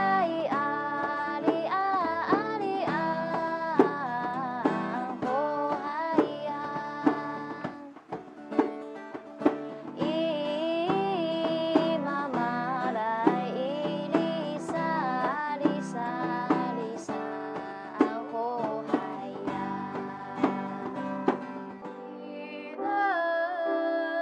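Voices singing a Puyuma traditional song, accompanied by acoustic guitar and a djembe hand drum beating time. Near the end the accompaniment stops and long, held sung notes begin.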